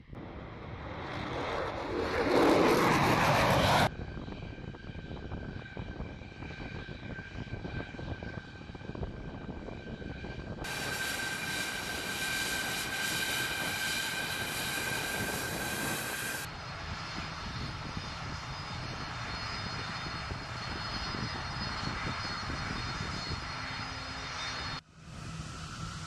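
Military jet aircraft engines heard in several edited segments. About two seconds in a jet passes loudly with a steeply falling pitch. Then come the steady high whine of F-16 fighters' jet engines as they taxi close by, and near the end the lower steady hum of A-10 Thunderbolt IIs' twin turbofans taxiing.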